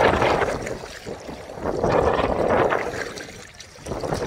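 Shallow seawater sloshing and lapping close to the microphone, swelling and fading in waves about every two seconds.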